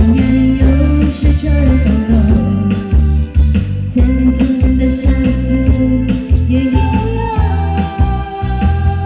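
Pop song music with a steady, heavy bass beat under a held melody line: an instrumental passage with no lyrics sung.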